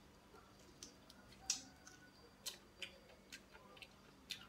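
Eating sounds of a person chewing fried pigeon and picking the meat off the bone with his fingers: a string of short, sharp smacking clicks at irregular intervals, the loudest about one and a half seconds in.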